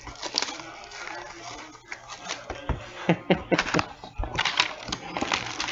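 Plastic shrink-wrap crinkling and tearing off a sealed cardboard box of hockey cards, then the box being opened and its contents slid out, with irregular crackles and light taps.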